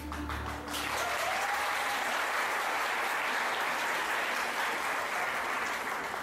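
Music ends about a second in, then an audience claps steadily.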